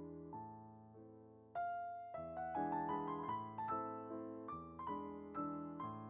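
Background music: gentle piano, notes and chords struck and left to fade, with a louder phrase coming in about a second and a half in.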